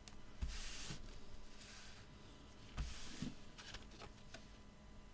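Sheets of card and paper being handled and rubbed on a craft desk as layered mats are put onto a card front: two louder rustles, each opening with a soft thump, about half a second in and about three seconds in, with a few light ticks between.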